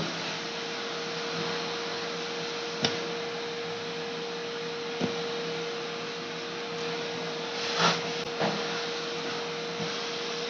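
A small motor running steadily, a whirring hiss with one steady hum-like tone, with a few light clicks or taps over it.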